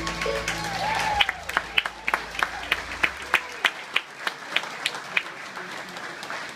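The last chord of a bluegrass waltz on upright bass, acoustic guitar, fiddle and banjo rings out, the bass lingering for a few seconds. Then an audience applauds, with separate sharp claps standing out about three a second, thinning out near the end.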